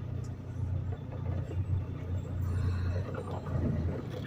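Semi-truck diesel engine idling with a steady low drone while the rig waits in line to fuel.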